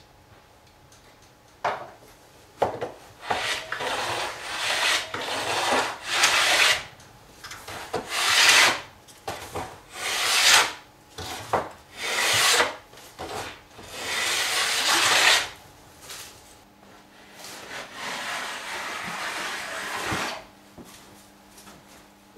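Stanley No. 50 combination plane cutting a bead along the edge of a wooden cladding board: a series of about a dozen rasping strokes of varying length, the last one longer and softer.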